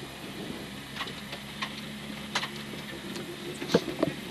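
Citroën C2 R2 Max rally car idling quietly, heard from inside the cockpit, with scattered clicks and knocks from the crew moving about the cabin. Two sharper knocks come near the end.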